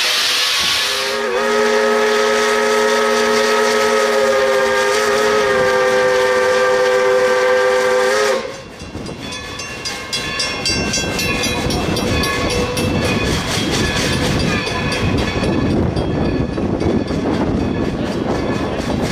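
Steam whistle of a Baldwin 4-6-0 steam locomotive, No. 40, blowing one long chord blast of about seven seconds that wavers slightly midway. After a short lull the locomotive is heard working under way: a loud rushing with rapid repeated beats and rolling rail noise.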